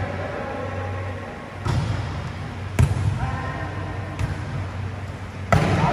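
Volleyball being struck by hand during a rally: four sharp slaps about a second and a bit apart, the loudest about three seconds in and another strong one near the end, each ringing briefly in the hall. Players call out faintly between the hits.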